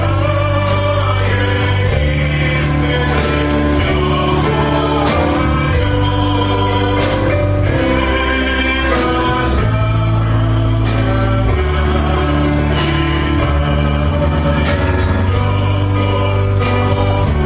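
Christian worship song: voices singing over instrumental backing, with sustained bass notes that change every couple of seconds.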